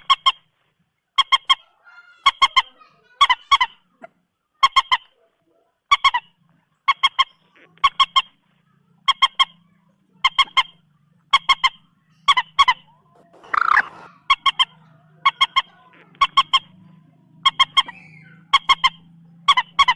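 Common moorhen giving short honking calls in quick pairs and triples, repeated about once a second, with one rougher, noisier call about fourteen seconds in.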